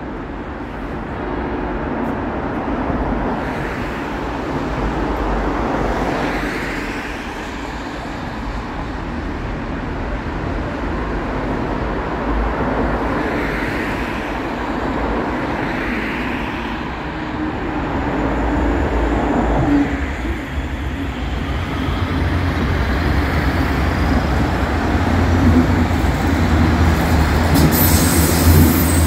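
Street-side rail stop ambience: a steady low rumble of traffic, swelling every few seconds as vehicles pass, around a light-rail train standing at the platform. Near the end a brighter hiss comes in as another train runs in under the overpass.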